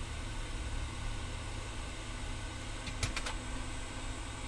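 A steady low hum, with a quick run of three or four sharp clicks about three seconds in.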